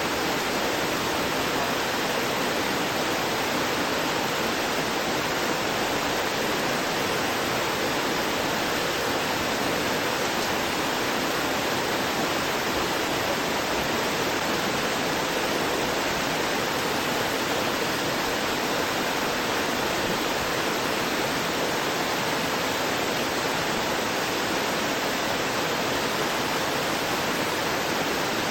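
Small rocky waterfall: water splashing and gurgling over stones in a steady, unbroken rush.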